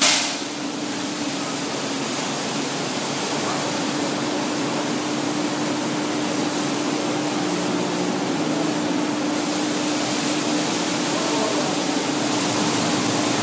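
Nut-processing machinery running steadily: an even whir and hiss of motors and moving air with a constant low hum.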